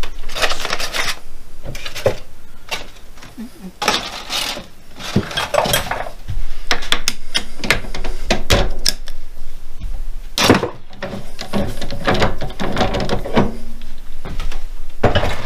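Metal clicks, clinks and scrapes as the chuck is worked loose with a bar tool and taken off the headstock of a wood lathe. The clatter is uneven, busiest in the middle, with one sharp knock about ten seconds in.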